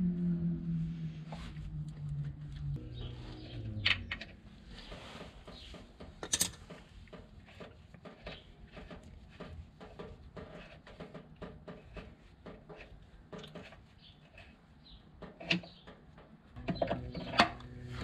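Scattered clicks, taps and a few sharper metallic knocks from hand tools working on a classic Alfa Romeo Giulia's clutch slave cylinder and its fittings. A low hum fades out in the first few seconds, and a steady low hum starts near the end.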